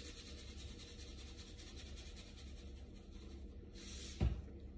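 Salt being shaken from a plastic salt shaker into a pot: a faint, fast, even rattle that stops after about three and a half seconds, then a dull thump about four seconds in.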